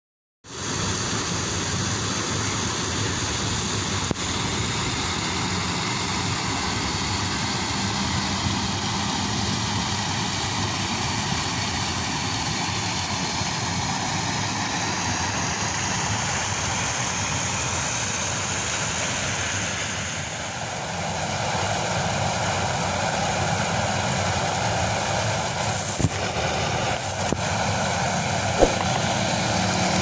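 Water rushing over a small concrete canal weir: a steady rushing noise that changes in tone about two-thirds of the way through.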